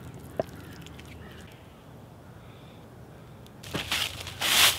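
Quiet background with one sharp click, then from about three and a half seconds in, loud bursts of crunching and rustling dry fallen leaves as handfuls are gathered up and dropped, the loudest near the end.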